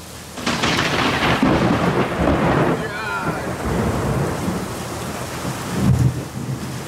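A thunderclap breaks about half a second in and rumbles on, swelling again near six seconds, over heavy rain pouring down on pavement.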